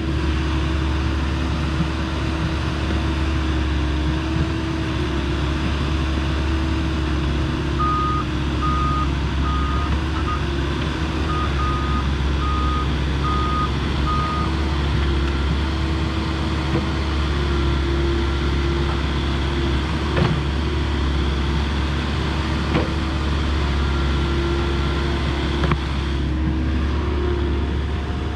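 Volvo ECR58D compact excavator's diesel engine running steadily while digging, its note shifting a little as the boom and bucket work. About a third of the way in, a reversing alarm beeps in an even series, somewhat under two beeps a second, for about six seconds. A couple of sharp knocks come later on.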